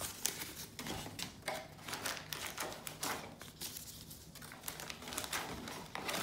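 Paper instruction leaflet, warranty card and thin cardboard box flaps rustling and crinkling in the hands, with irregular light taps and clicks.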